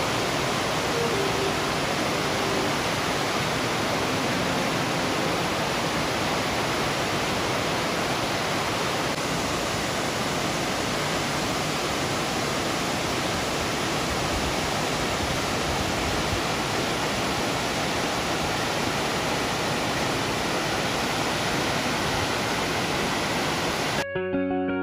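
Tiered waterfall cascading over rock ledges: a steady, full rush of falling water. It cuts off suddenly near the end, where music comes in.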